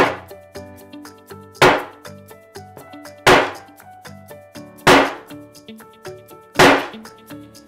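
Hammer striking a tempered-glass iPhone screen protector lying on a tabletop: five sharp blows at an even pace, about one every second and a half, each with a brief ring, in a test of how hard the glass is to break.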